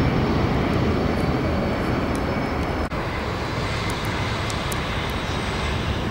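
Jet engines of a Boeing 747-400ER rolling out on the runway just after touchdown: a loud, steady rushing engine noise that eases slightly about halfway through.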